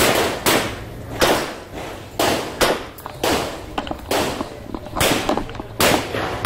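Revolver shots fired in quick succession during a timed course of fire. There are about a dozen of them, irregularly spaced half a second to a second apart, each a sharp crack with a short echo.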